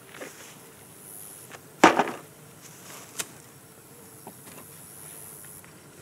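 Knife blade prying and scraping at wooden hive frames: a loud knock and scrape about two seconds in, a sharp click about a second later, and a few lighter taps. Bees buzz faintly in the background.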